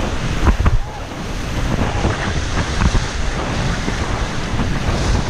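River water rushing and splashing around an inflatable raft as the crew paddles forward through the current, with wind buffeting the microphone.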